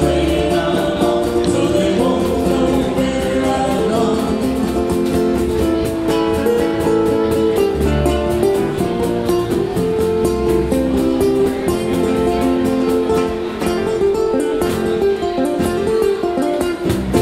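Live ukulele band playing a folk song: strummed ukuleles at a steady rhythm, with singing.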